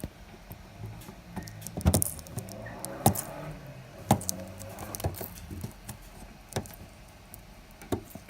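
Sticky tape being picked at and peeled off a gift box's packaging. Irregular crackles and sharp clicks, the loudest about 2, 3, 4, 6.5 and 8 seconds in.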